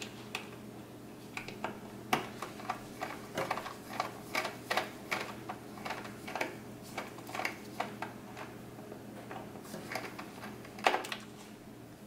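A Phillips #1 screwdriver backing out the tiny screw that holds an M.2 Wi-Fi card to a desktop motherboard, then gloved fingers handling the screw: irregular small clicks and taps, one or two a second, over a low steady hum.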